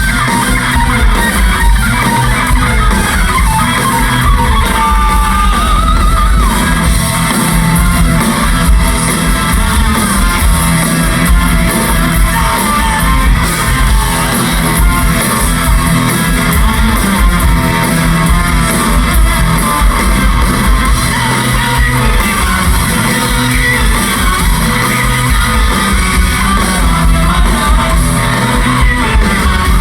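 Rock band playing live: electric guitars over bass and drums, loud and continuous.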